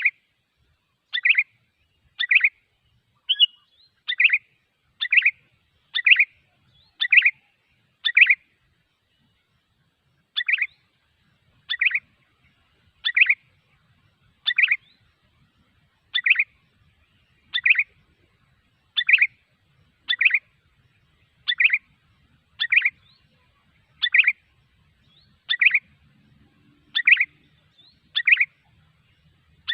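Sooty-headed bulbul (kutilang) lure call: short, bright chirping calls repeated about once a second, with one pause of about two seconds a third of the way through.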